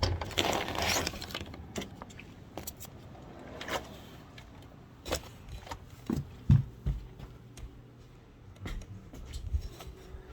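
Handling and movement noise: rustling, light clicks and scrapes, with a few dull thumps about six to seven seconds in.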